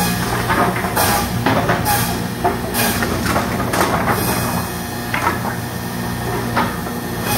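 Go Fast pallet board line with a tilt hoist feeding a 2NXP double head notcher, running with a steady machine hum. Wooden boards clack and knock as they feed through, about once a second in the first half and less often later.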